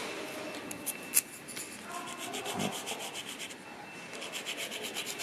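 The tips of a wooden fork's tines are rubbed back and forth on a sheet of sandpaper in quick, scratchy strokes that come in runs, with a single sharp tap about a second in. The outer tines are being sanded down to reshape their chipped tips.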